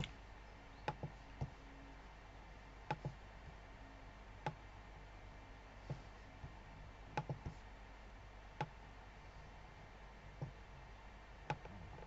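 Computer mouse clicks, faint and irregular, single or in quick pairs every second or two, over a faint steady low hum.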